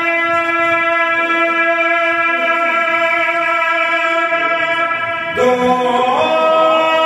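A man singing a hamd, an Urdu hymn in praise of God, into a microphone, holding one long note and then moving to a new pitch with melodic turns about five seconds in.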